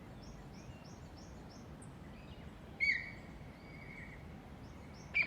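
An unidentified bird calling: a quick run of short high notes, then a loud call about three seconds in that holds one steady pitch for about a second, and another sharp loud call near the end.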